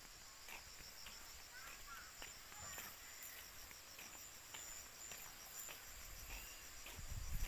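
Field insects trilling steadily, a faint high-pitched pulsing buzz, with soft scattered ticks of footsteps through grass. A low rumble on the microphone rises near the end.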